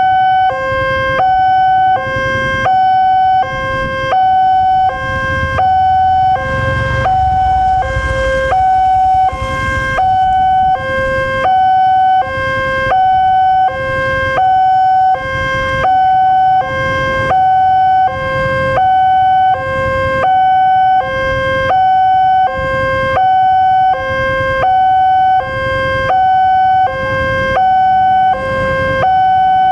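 Railway level crossing's electronic warning alarm sounding from the loudspeaker on the signal post. It alternates steadily between a lower and a higher tone, about one high-low cycle every second and a half, warning that a train is approaching.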